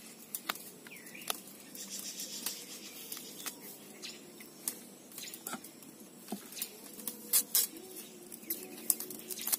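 Kitchen knife cutting and scraping fresh spring onions: scattered small clicks and crunches, a few louder ones near the end.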